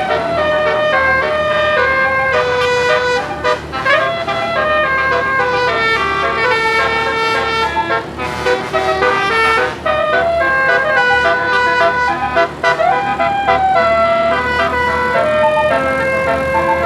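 Telolet basuri musical air horn on a bus playing a tune without pause: a run of held horn notes stepping from pitch to pitch, with quick upward slides into some of them.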